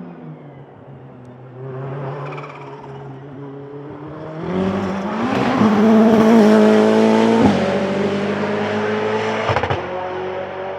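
Ferrari 488 GT Modificata's twin-turbo V8 race engine accelerating hard past, building to a loud peak about halfway through, with two quick upshifts cutting the engine note.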